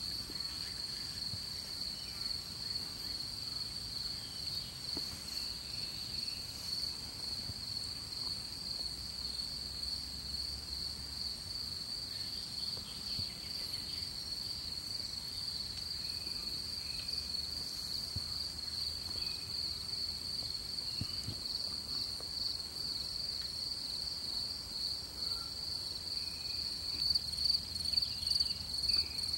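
Insects in tall grass chirring steadily, a continuous high-pitched trill that grows louder and more clearly pulsed near the end.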